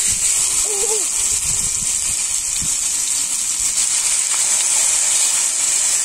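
Lamb steaks sizzling in hot oil on a wide black steel pan as they are laid in: a loud, steady hiss that starts suddenly and cuts off suddenly near the end.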